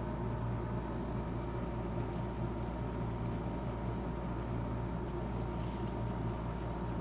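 Steady low hum with hiss and a faint high tone, unchanging throughout, with no distinct strokes or knocks.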